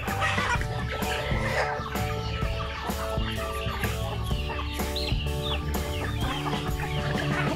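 A flock of chickens clucking while they peck at feed, over background music with held melodic notes and a low bass line.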